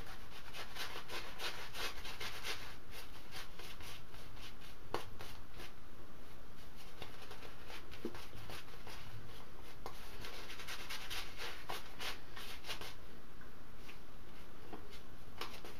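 Badger-hair shaving brush working up lather: a steady run of quick, scratchy swishing and rubbing strokes.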